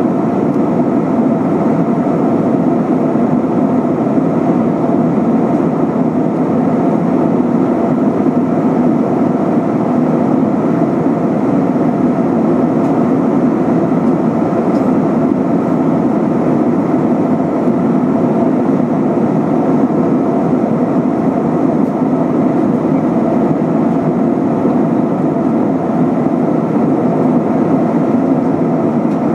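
Steady cabin noise inside an Airbus A320-232 in flight: the even rumble of its IAE V2500 engines and the airflow over the fuselage, with no change in pitch or level.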